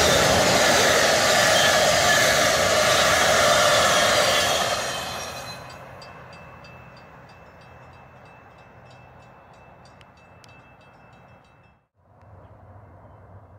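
Passenger train passing at speed, its cars and wheels on the rails loud, then fading away over about two seconds as the train recedes. A faint, steady high tone with regular ticks remains afterwards, then it cuts to quiet outdoor background near the end.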